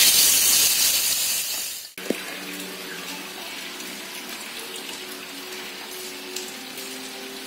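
Cooking oil poured from a plastic pouch into a metal wok, a loud splashing pour that cuts off sharply about two seconds in. After that comes a quieter steady hiss from the oil in the wok, with a few light clicks as pandan leaves and a spatula go in.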